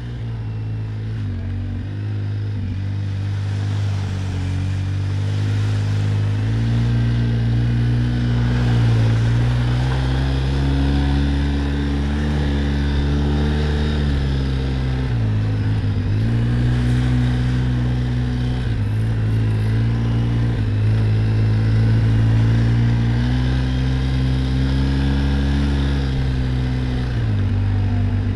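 Quad bike (ATV) engine running under load as it is ridden, its pitch rising and falling with the throttle and dropping briefly twice, about halfway through and near the end.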